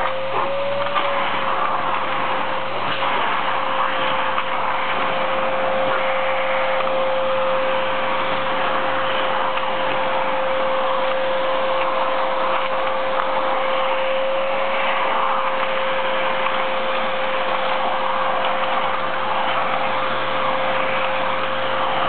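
Vacuum cleaner running steadily with a constant whine, its floor head being passed over a long-haired dog's coat.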